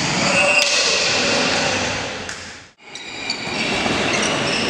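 Volleyball rally in a large indoor hall: a steady, loud hall din, with a sharp hit of the ball about half a second in and a fainter one past two seconds. The sound dips out briefly near three seconds.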